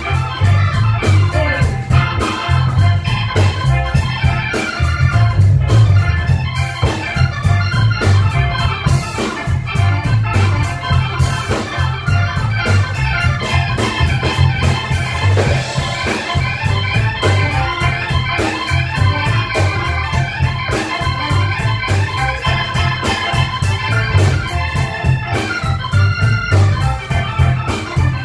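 Live band playing an instrumental groove: an organ-toned keyboard over a pulsing bass line, with saxophones and electric guitar.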